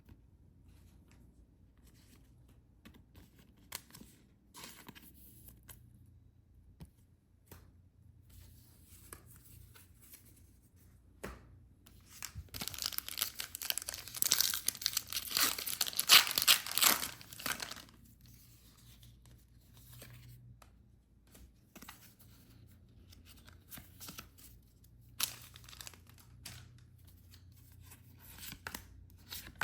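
Packaging of a trading-card box set being torn open and crinkled by hand. Light rustling gives way to a long, loud stretch of tearing and crinkling about halfway through, and a shorter burst comes near the end.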